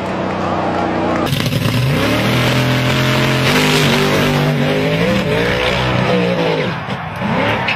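Drag-racing car engines at full throttle. A car's engine runs on the strip, then about a second in the sound jumps to a louder, closer launch as another car pulls a wheelstand off the line, its revs climbing, dropping and climbing again.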